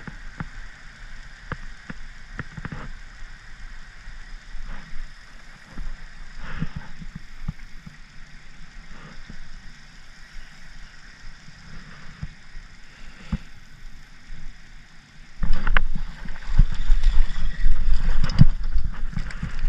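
Fishing rod and spinning-reel handling: scattered light clicks at first, then, about three-quarters of the way through, a sudden loud stretch of low rumbling and knocking as the rod is bent into a hooked fish.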